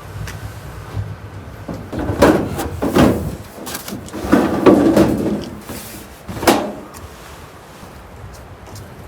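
A handful of heavy knocks and scrapes from something being handled and set down, loudest about two, three, five and six and a half seconds in, over a low steady rumble.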